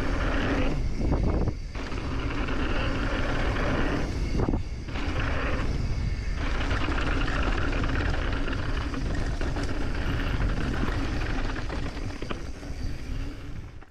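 Mountain bike riding down a dirt bike-park trail, heard through a helmet- or bike-mounted GoPro: a steady rush of wind on the microphone mixed with tyre noise on dirt, briefly dipping a few times and cutting off suddenly at the end.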